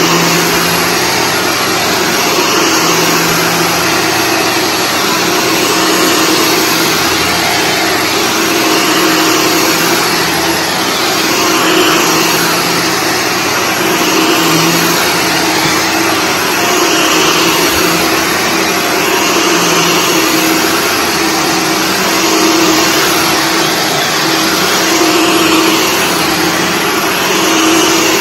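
Shark Stratos upright vacuum cleaner running on carpet, its motor and brushroll making a steady loud whir. The sound rises and falls about every two to three seconds as it is pushed and pulled across the pile.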